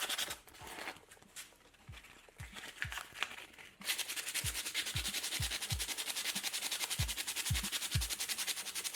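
Rapid, even rasping of metal being worked down, starting about four seconds in, as steel for a homemade battery brace is shaped. It plays over hip-hop music with deep bass kicks that fall in pitch.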